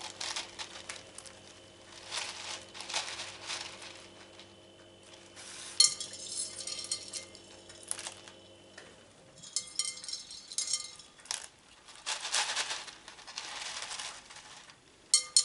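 Expanded clay pebbles (LECA) rattling and clinking as they are poured and pushed in around orchid roots in a pot, in several separate bursts, some with a short ringing clink.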